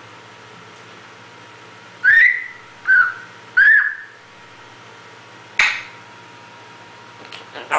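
A pet animal making short, high-pitched whistle-like vocal calls: three loud ones about two to four seconds in, each bending upward in pitch, then a sharper single call, and a few quick short ones near the end.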